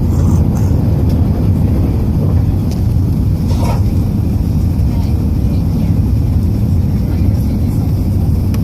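Airbus A380's four turbofan engines at takeoff thrust, a loud, steady low rumble.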